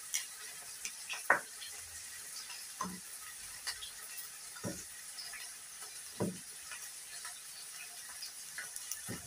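Small fish frying in cooking oil with a steady sizzle. About five short, sharp snaps are heard over it as green onions are peeled and torn by hand over a plastic bowl.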